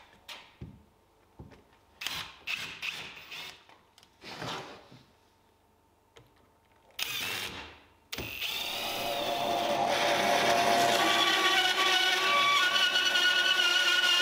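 A cordless drill/driver drives screws through a plywood template into a pine blank in several short bursts. About eight seconds in, a band saw starts and runs steadily with a whine, building over a couple of seconds.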